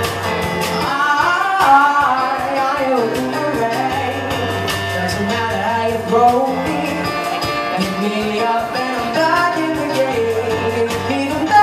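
Live band playing a song: a drum kit keeping a steady beat under keyboard and bass, with a male singer's voice carrying the melody.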